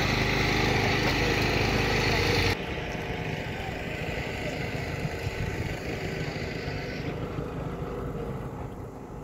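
An engine idling steadily close by, which cuts off abruptly about two and a half seconds in. A quieter, unsteady low rumble and outdoor background noise follow.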